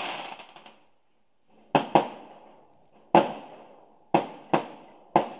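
Aerial fireworks bursting: about six sharp bangs, the first two close together, each trailing off quickly.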